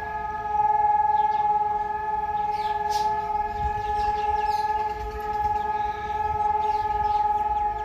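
Civil-defence siren sounding one steady, unwavering tone: Israel's two-minute Holocaust Remembrance Day siren.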